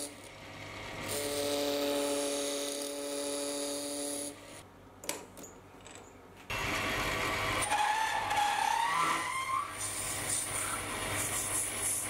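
Sieg C3 mini lathe running as it turns acrylic stock. A steady motor whine comes first, then a brief lull with a single click about five seconds in, then cutting noise with a wavering whine that climbs in pitch.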